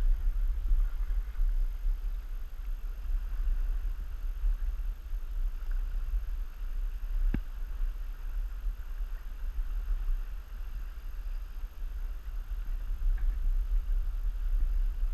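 Low, gusting rumble of wind buffeting the microphone over a faint steady hiss, with one sharp click about seven seconds in.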